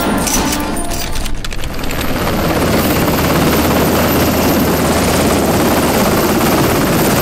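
Navy Seahawk helicopter hovering: steady rotor and turbine noise that comes up about two seconds in and holds, with a thin high whine above it. A few sharp clicks come before it in the first second and a half.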